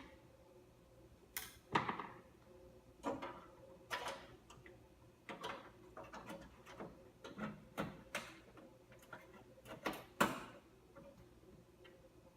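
Irregular clicks and knocks of computer parts being handled and fitted into a desktop PC case during reassembly, a few of them sharp and loud.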